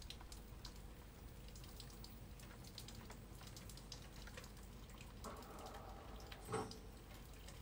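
Faint dripping of rain from the storm: scattered drops ticking over a low steady hum, with a short louder knock a little over six seconds in.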